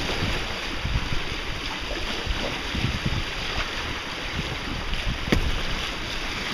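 Wind buffeting the microphone over water rushing and splashing along the hull of a small sailboat under way in choppy water.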